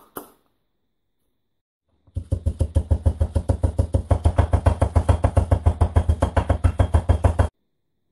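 Wooden pestle pounding olive leaves in a wooden mortar. One knock, a silent gap of nearly two seconds, then a fast, even run of knocks, about eight a second, that stops abruptly near the end.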